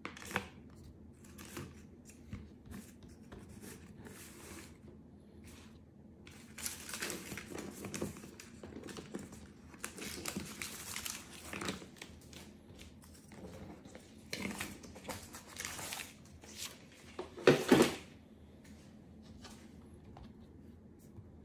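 Paper and plastic packaging being handled, with rustling and crinkling in several spells, then a couple of sharp knocks near the end.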